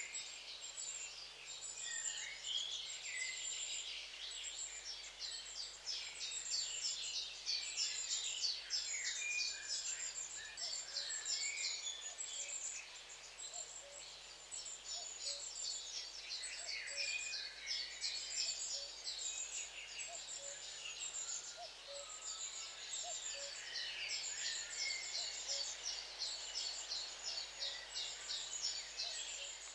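A flock of long-tailed tits calling: many thin, high-pitched calls and short chirps overlapping in a continuous chatter.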